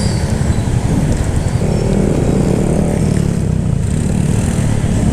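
Honda Airblade scooter, bored up to 170cc and fitted with a Yoshimura Alpha aftermarket exhaust, running while being ridden, with a steady heavy low rumble.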